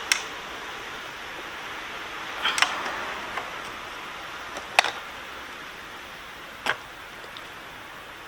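A few small, sharp plastic-and-metal clicks, four in all with the loudest near the middle, from a wiring pin being worked out of a motorcycle's 34-pin ECU connector by hand, over a steady faint hiss.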